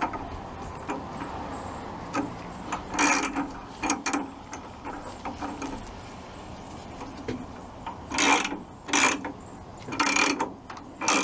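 A 19 mm box-end wrench working the alternator pulley nut on a VW Type 1 engine in short mechanical strokes, two about three seconds in and four more near the end. The pulley spins along with the nut instead of tightening, because nothing is holding it.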